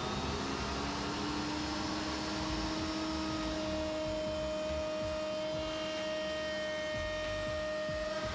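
Table-mounted router with a chamfer bit running steadily as an MDF ring is fed past the bit, cutting a chamfer. It makes a steady motor whine with a few held tones, one of which enters about a second in.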